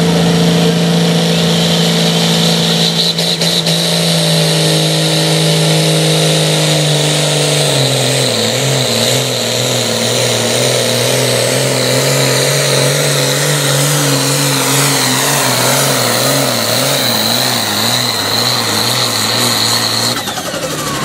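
Diesel pro stock pulling tractor running at full throttle under load while dragging the weight-transfer sled, with a steady high whistle over the engine note. About eight seconds in, the engine pitch drops and starts to waver up and down as the load builds.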